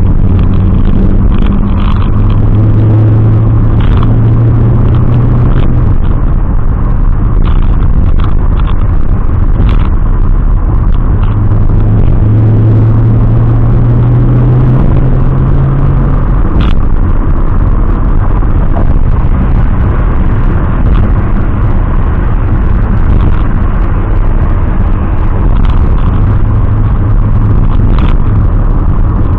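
Turbocharged BMW E30's M20B27 inline-six engine running with the car under way, a loud steady engine and road rumble. The engine note rises slowly twice, from about two seconds and from about twelve seconds, and drops back about sixteen seconds in; a few short clicks sound over it.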